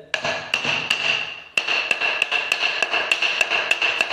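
Small hammer tapping a dry log section, a quick series of taps, about three a second after the first few. Each tap rings with a clear, high note, the sign that the wood is dry.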